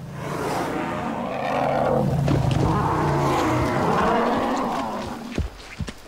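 African bull elephants roaring as they spar, one long, low, rough roar that fades about five seconds in, followed by a few sharp knocks near the end.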